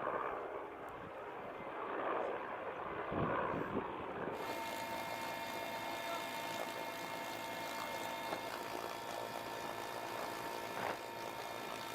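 Helicopter engine and rotor noise. For the first four seconds it is muffled with rising and falling rushes; after that it becomes a steady, fuller hum with many steady tones.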